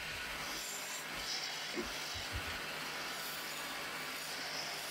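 Small electric wood lathe running while a hand-held chisel cuts a spinning wooden spindle: a steady scraping hiss of wood being shaved, over a low steady hum. A few soft knocks come about two seconds in.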